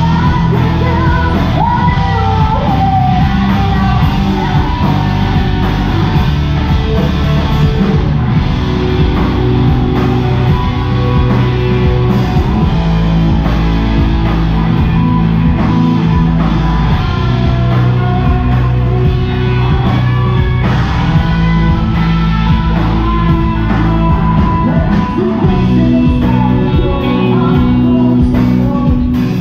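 Live rock band playing loud: electric guitars and drum kit, with a woman singing into a microphone.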